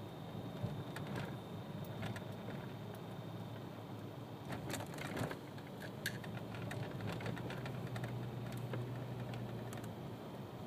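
Car engine idling, heard from inside the cabin as a low steady hum, with scattered light clicks and taps, a cluster of them about halfway through.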